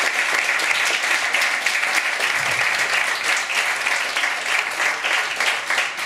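Audience applauding at the close of a talk: many people clapping in a steady, dense patter.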